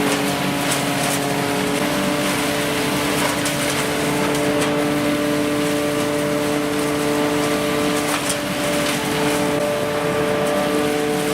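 Tractor-driven, PTO-powered leaf vacuum running steadily: a constant whine over a rushing hiss, with a few brief clicks.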